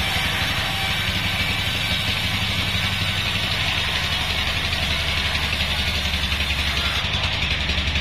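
Band sawmill cutting a bayur log lengthwise. The machine's drive gives a steady low drone, over an even hiss from the blade in the wood.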